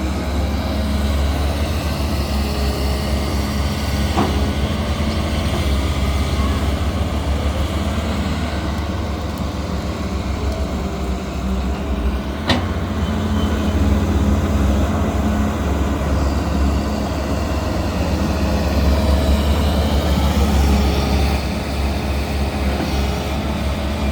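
Diesel engines of CAT hydraulic excavators running steadily while digging, the engine note swelling and easing at times. A sharp metallic clank sounds about halfway through.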